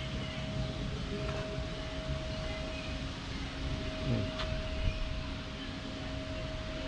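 Outdoor background noise: a low steady rumble with a constant high hum that drops out briefly a little past three seconds in.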